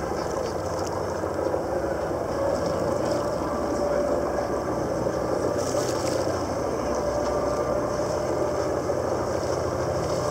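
Catamaran's engine running steadily, a low drone with a held higher hum, over a constant rush of water.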